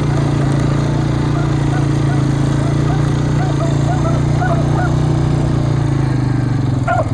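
A pack of beagles baying in short, rapid calls, about three a second, growing more insistent toward the end, over a steady low engine-like hum.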